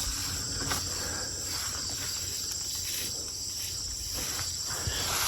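Steady, unbroken high-pitched chorus of insects calling in the woods.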